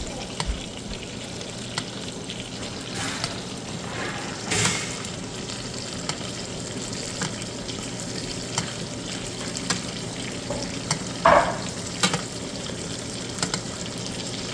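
Steaks frying in a pan of melted butter, sizzling steadily with many small crackles and pops, and a couple of louder bursts of spitting a few seconds in.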